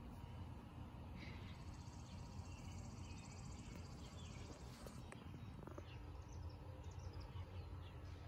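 Faint outdoor ambience: small birds chirping in short calls scattered through, with a faint high trill in the first half, over a steady low background rumble.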